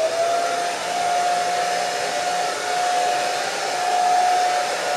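Handheld hair dryer running: rushing air with a steady motor whine, which rises in pitch to settle about half a second in as the motor comes up to speed.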